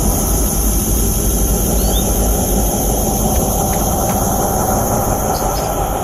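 Steady loud rumbling noise with a high hiss running throughout, with a faint short rising chirp from a domestic canary about two seconds in.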